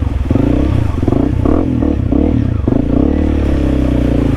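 Honda CRF300L's single-cylinder four-stroke engine revving up and down in quick swells as the throttle is worked through mud, with some rattle from the bike.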